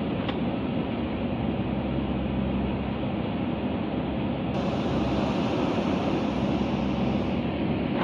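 JCB backhoe loader's diesel engine running steadily under load as the rear backhoe bucket digs into the hillside soil.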